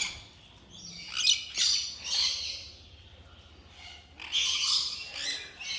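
Parrots chirping and squawking in short bursts: a cluster about a second in, another around two seconds in, and a longer stretch from about four seconds on, with quiet gaps between.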